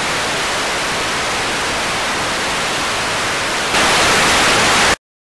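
Analog TV static: a steady, even hiss that gets louder and brighter about three and a half seconds in, then cuts off abruptly near the end.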